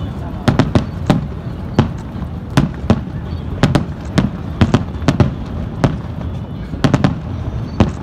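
Aerial firework shells bursting overhead in a rapid, irregular series of sharp bangs, about two a second, over a steady low rumble.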